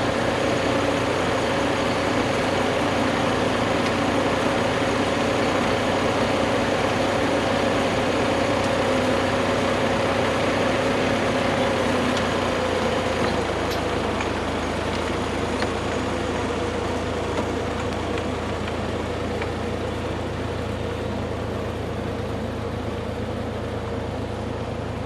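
Vehicle engine running steadily while towing a heavy oak log on a dolly. Its note drops and gets a little quieter about halfway through.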